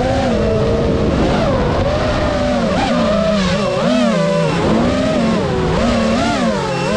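Geprc Mark 5 FPV quadcopter's motors buzzing loudly, heard from the onboard camera. The pitch rises and falls continually with the throttle as the quad flies low and comes in to land.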